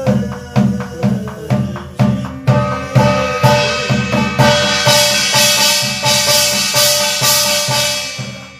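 Korean barrel drum (buk) beaten in a steady rhythm, about two strokes a second, as the beat for a shaman's gosa sutra chant. A bright ringing metallic wash builds up through the middle and fades near the end.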